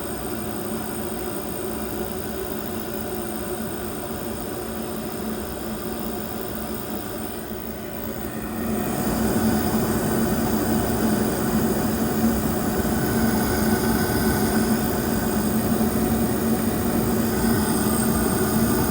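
Trane gas furnace running with all three burners lit and its fans going, a steady hum and rush that grows louder about eight seconds in. It sounds normal, a sign that the burner fault is fixed.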